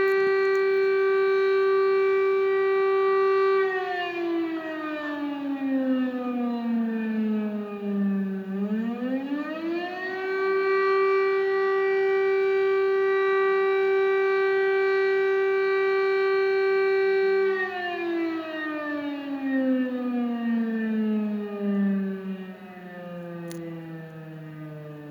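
Civil defense siren sounding one steady, loud tone. A few seconds in its pitch slides down, then climbs back up and holds again; near the end it winds down slowly to a low drone.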